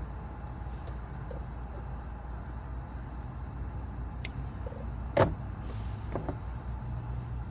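Ferrule crimping tool closing a ferrule onto 12-gauge speaker wire: a few small clicks and one sharp snap about five seconds in, over a steady low background hum.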